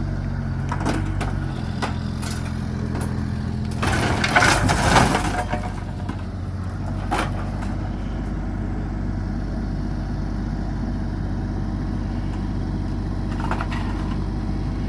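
Engine of heavy scrapyard machinery running steadily. About four seconds in, its note changes under a loud rough burst of noise lasting about a second and a half.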